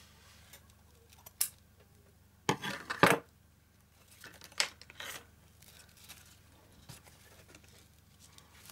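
Fabric scissors snipping through gold metallic ribbon: a few sharp snips and clicks spread out, the loudest about three seconds in.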